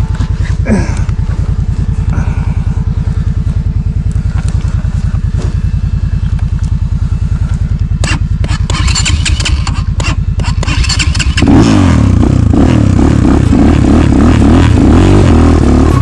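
GR8 four-stroke enduro motorcycle engine idling with an even, rapid beat, with some rattling from about two-thirds of the way in. Near the end a louder sound cuts in abruptly over it.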